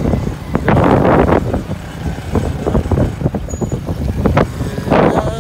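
Motorcycle running along a rough gravel track, a loud, uneven noise that surges about a second in and again near the end.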